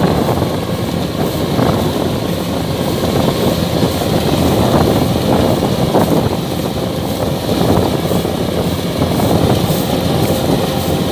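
Kubota DC-105X combine harvester running steadily while cutting rice: its diesel engine drone mixed with the dense, continuous clatter of the cutting and threshing machinery.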